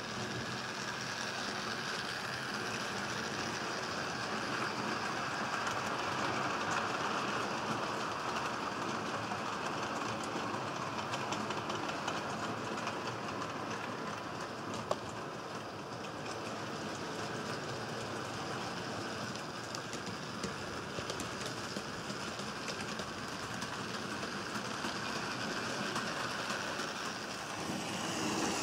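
HO-scale model train running along a layout's track: a steady rolling noise of wheels on rails, with one sharp click about halfway through.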